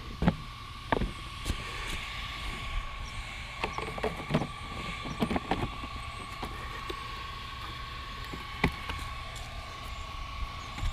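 Small electric cooling fans on an RC truck whirring steadily with a high, even whine, with scattered clicks and knocks of handling.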